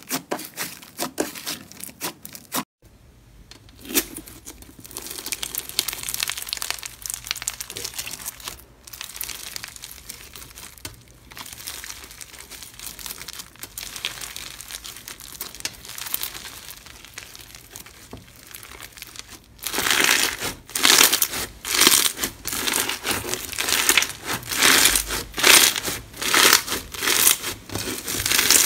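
Hands working slime: a short bit of kneading soft pink slime, then pale blue clear slime packed with small beads crackling and crinkling as it is stretched and squeezed. The crackling gets louder over the last third, in a run of separate squeezes.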